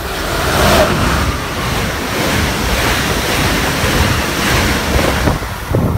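Amtrak train led by an ACS-64 electric locomotive passing at speed close by: a loud, steady rush of air and wheel noise on the rails, with wind buffeting the microphone.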